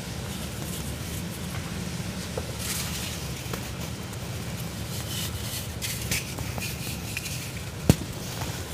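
Hands crumbling and sifting dry cement chunks and powder: a soft, gritty crackle and scrape. A single sharp crack near the end is the loudest sound, over a steady low hum.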